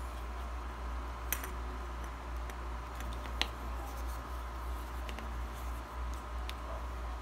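Fingernails and fingers work at a small plastic earbud charging case, giving a few short sharp clicks and faint scratchy handling noises over a steady low hum.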